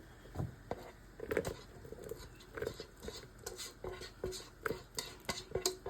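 A kitchen utensil tapping and scraping against cookware in quick, irregular clicks, some with a short ring, as food is scooped and moved.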